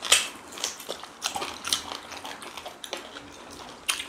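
Close-up eating sounds: biting and chewing on meaty chicken pieces, with irregular wet mouth smacks and clicks, the sharpest just after the start and just before the end.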